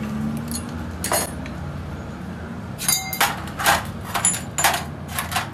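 Steel jack parts and tools clinking and clanking against each other: one sharp clink about a second in, then a quick run of about seven sharp metallic clinks, some ringing briefly, over a steady low hum.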